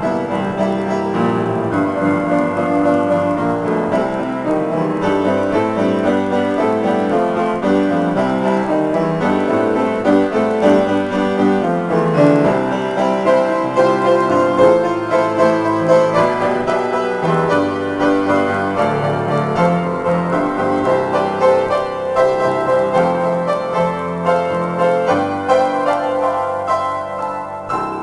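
Solo grand piano playing an improvisation: a continuous flow of many overlapping notes and chords across the middle and low registers.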